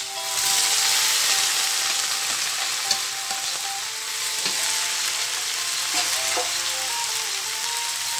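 Mung bean sprouts going into hot oil in a metal wok with carrot and bell pepper, sizzling loudly as they land, while a metal spatula stirs them with a few clinks against the pan. The sizzle swells about half a second in and eases a little after the first couple of seconds.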